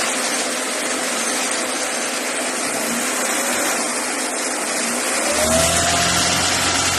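Kia Rio's petrol engine running under an open hood, with a steady hiss. About five seconds in it is revved, the pitch rising and then held.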